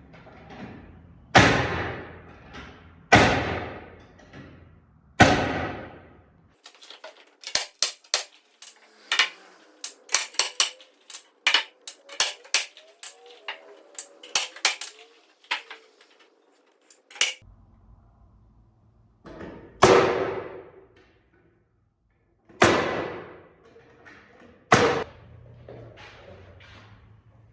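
Nails being driven into wood wall framing: a few loud, sharp strikes, each ringing out for about a second, then a long stretch of quicker, lighter taps and clicks, then three more loud strikes near the end.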